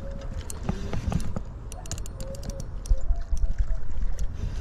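Water splashing and trickling from a hooked common carp fighting near the bank, with scattered clicks from the spinning reel and a low rumble of handling on the microphone. It grows louder about three seconds in.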